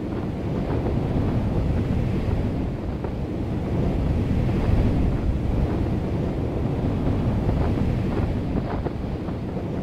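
Steady wind blowing over the microphone, a low rushing rumble that swells and eases a little.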